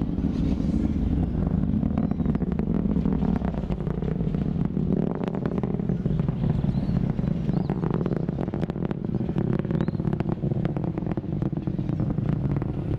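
Ariane 5 rocket during ascent: a steady low rumble with crackling.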